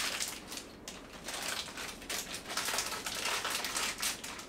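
Crinkling and rustling of packaging with irregular light clicks as small furniture hardware, the dresser's foot pegs, is handled.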